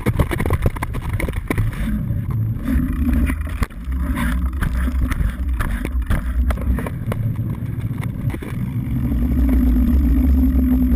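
Mountain bike ridden over rough ground and then asphalt, heard from a camera mounted on the bike: a low rumble with frequent rattles and knocks from the bike and its mount over the bumps. Near the end, on smooth pavement, the knobby tyres give a steady hum that grows louder.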